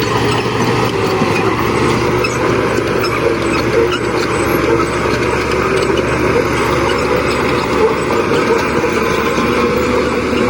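Diesel engine of heavy earthmoving machinery running steadily under load, a continuous low hum with no breaks or pauses.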